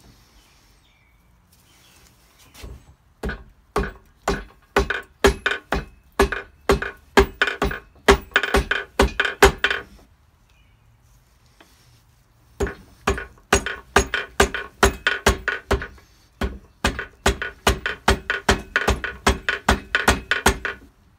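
Rubber mallet striking a 1971 VW Super Beetle engine case in quick runs of blows, about two to three a second, with a short pause between the two runs. It is knocking the stuck case halves apart.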